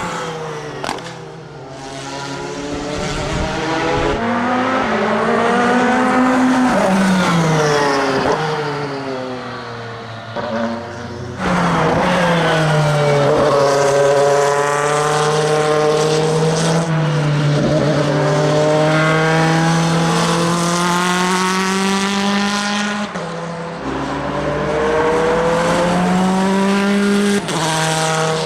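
Audi R8 LMP prototype's twin-turbo V8 at racing speed. Its note climbs and drops repeatedly, with several abrupt jumps in pitch, and holds one long pull near the middle.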